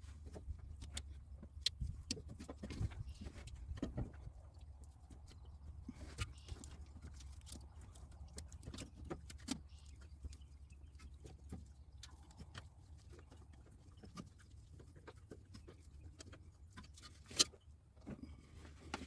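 Irregular light clicks and knocks of hand tools and parts being handled during oil-change work on a pickup truck, over a steady low hum. One sharp click about 17 seconds in is the loudest.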